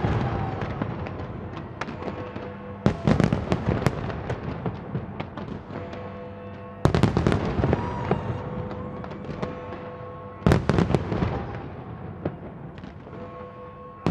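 Fireworks display: loud barrages of shells bursting about every three to four seconds, each fading into a crackle, with music playing underneath.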